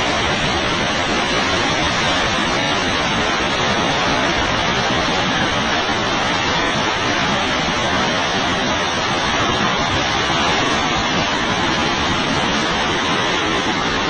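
Large waterfall in full flow: heavy water rushing steadily down a rock gorge, an even, unbroken noise.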